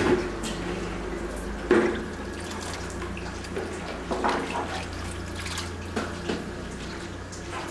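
Whey splashing and dripping as hands scoop cheese curds and press them into a Gouda mold submerged in the whey, with a sharper splash about two seconds in. A steady low hum runs underneath.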